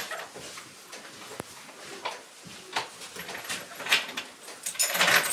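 Scattered knocks, scuffs and clatters as a barn door is opened and cows' hooves and boots move on the wet floor, with the loudest clatter near the end.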